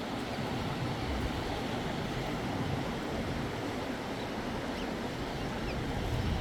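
Klamath River water flowing with a steady rushing sound, with a few faint high chirps in the middle.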